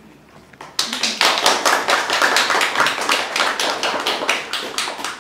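Audience applauding: a burst of clapping that starts about a second in and dies away near the end.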